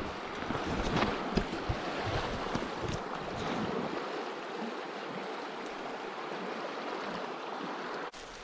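Shallow river running over riffles: a steady rushing of water, with a few small clicks in the first few seconds.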